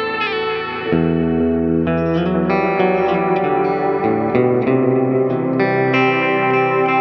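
Telecaster-style electric guitar played through an EarthQuaker Devices Disaster Transport SR pedal, with both delays A and B and reverb on. Chords ring out and overlap with their repeating echoes, and a new chord comes in about a second in, followed by several more changes.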